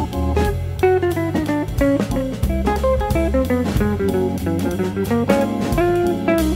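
Background music: a light jazzy tune of short plucked guitar notes over bass and a drum kit.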